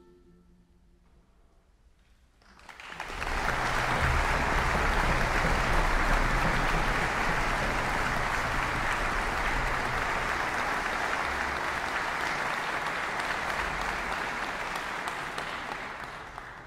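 Concert hall audience applauding: the orchestra's last chord dies away, and after a short hush the clapping breaks out about two and a half seconds in, holds steady, and starts to tail off near the end.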